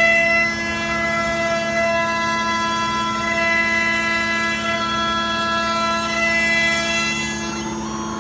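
A CNC router's 2.2 kW spindle running at about 14,000 rpm with a steady whine, while the stepper motors drive the cut and add steady tones that come and go as the axes change direction. Some of the higher tones drop away near the end.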